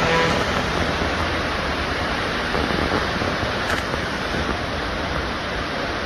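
Fukuroda Falls, a waterfall cascading over tiers of rock, making a steady rushing noise.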